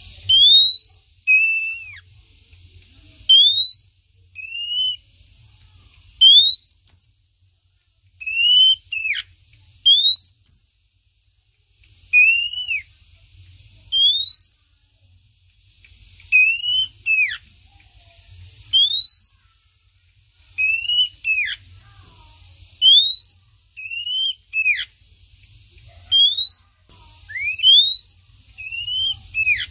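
Female oriental magpie-robin calling with loud whistled notes: quick rising sweeps, often followed by a short falling note, repeated every second or two in small groups. This is a lure call of a female calling to a male. A faint steady high tone runs beneath much of it.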